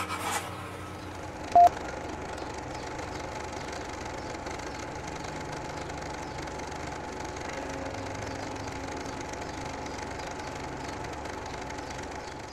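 A steady mechanical whirring drone, with one short, loud electronic beep about one and a half seconds in.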